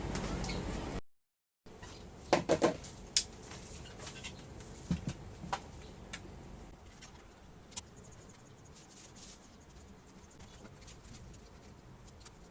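Laptop being handled for a power-on test: a steady hum that cuts out for a moment about a second in, then a quick cluster of sharp clicks and knocks about two seconds in, followed by scattered single clicks over a faint hum.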